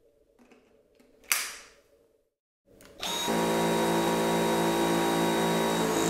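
A single sharp click about a second in. About halfway through, a Dyson V8 cordless stick vacuum's motor starts and runs steadily: an even hum with a high whine over it.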